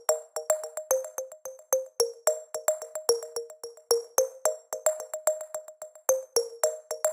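Electronic music: a quick, even run of short plucked synth notes.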